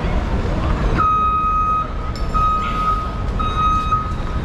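A vehicle's reversing alarm starts beeping about a second in: one steady high beep repeating about once a second, the first held a little longer, over a low street rumble.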